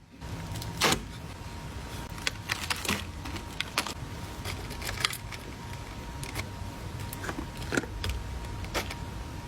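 Hands packing a jewellery order: irregular clicks, taps and rustles of packaging and small items being handled, the loudest about a second in, over a faint steady high hum.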